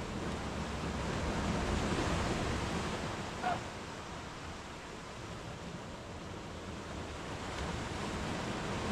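Sea waves breaking and washing up a sandy beach among rocks, a steady hiss of surf that swells about two seconds in and again near the end. A short chirp about three and a half seconds in.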